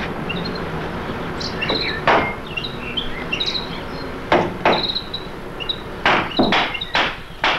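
Hammer blows on the aviary's wooden frame: a single strike about two seconds in, then a run of strikes that come faster near the end. Short high-pitched chirps sound between the blows.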